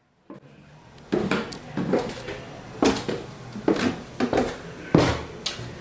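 Footsteps coming down a flight of stairs, a step landing roughly every second with a knock.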